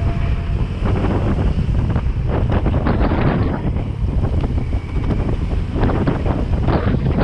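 Wind buffeting the microphone of a camera riding on a moving motorcycle, a dense rumble with irregular gusts over road and engine noise.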